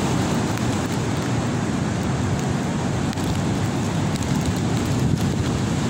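Strong thunderstorm wind buffeting the microphone: a steady, dense low rumble of wind noise.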